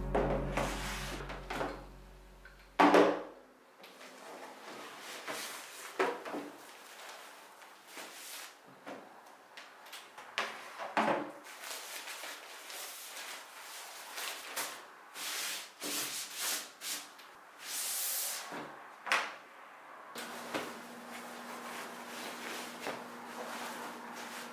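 Hands handling things on a desk: a box set down with a sharp knock about three seconds in, then scattered clicks, rustles and handling of a fabric case and a cotton shirt. A faint steady hum comes in near the end.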